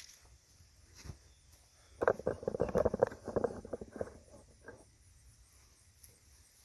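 A steel tape measure's blade rattling with rapid clicks as it runs through its case, for about two seconds, after a single click about a second in.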